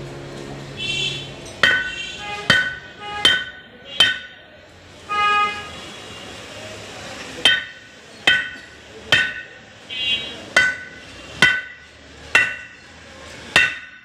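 Hammer striking steel parts of a garment hydro extractor (industrial spin dryer) being dismantled: about a dozen sharp blows in uneven runs with short pauses, each ringing briefly with a metallic tone.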